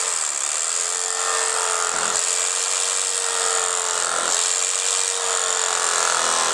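Cuisinart electric carving knife running, its motor humming steadily as the reciprocating blades saw through smoked brisket, the pitch sagging slightly about every two seconds.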